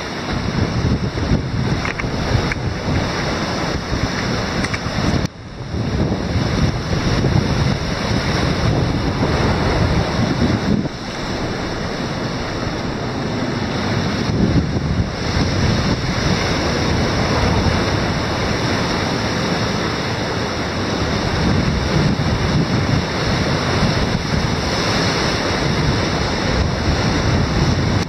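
Rough Caspian Sea waves surging and breaking in foam against shell-rock boulders, a continuous wash of surf, with wind buffeting the microphone.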